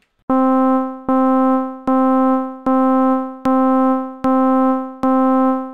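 Logic Pro ES1 software synthesizer playing a repeated C, seven notes a little under a second apart, each at the same loudness and fading out before the next. The notes carry varying velocities, but with the amplifier's velocity range set to the same lowest and highest value, all come out at equal amplitude: the synth is working just as a gate, turning on and off.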